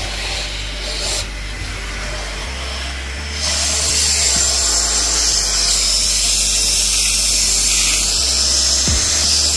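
SIP 3-in-1 industrial valet machine running, its vacuum nozzle drawing air over the car's carpet and floor. It gets louder about three and a half seconds in as the nozzle moves.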